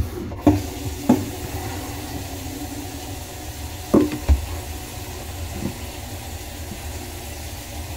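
Tap water running into the vanity sink basin above the pop-up drain, a steady hiss, with a few short knocks: near the start, and two about four seconds in.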